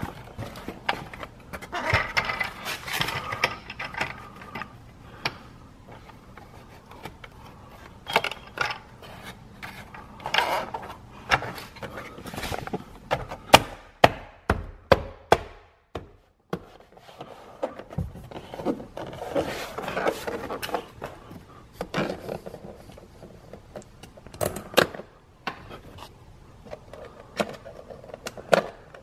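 Plastic car interior trim being worked by hand: trim clips pulled out with locking pliers and pressed back into the trim piece, and the piece snapped back into place. The result is an irregular run of clicks, snaps and scrapes, with a cluster of sharp clicks about halfway through.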